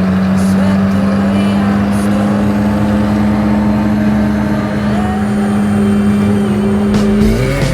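Ferrari 458 Speciale's naturally aspirated V8 running at a steady engine speed, one even note, until the pitch breaks and shifts near the end.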